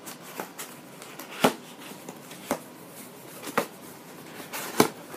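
Hands handling and prying at a cardboard mailing box: a series of sharp cracks and knocks about once a second, the loudest about a second and a half in and near the end.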